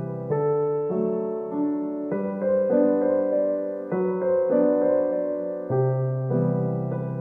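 Background music: a slow piano piece, each note or chord struck and left to fade before the next, about one to two a second.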